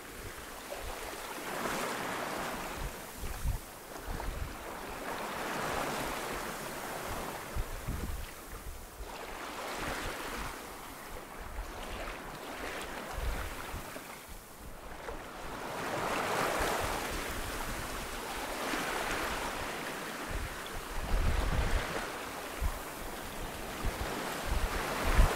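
Sea waves washing, with wind over open water, swelling and fading every few seconds; gusts of wind buffet the microphone now and then.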